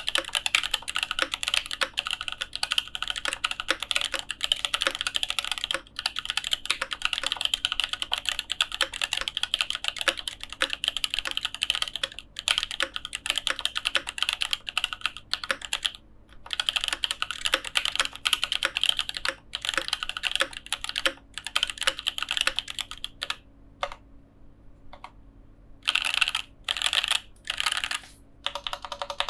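Fast, continuous typing on a custom mechanical keyboard with lubed and filmed EV-01 switches and tuned stabilizers. The run breaks off briefly a few times and stops for about two seconds near the end, then resumes in a few short clusters of keystrokes.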